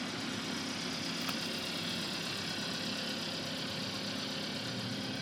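Hyundai Santa Fe idling, a steady, even hum and hiss.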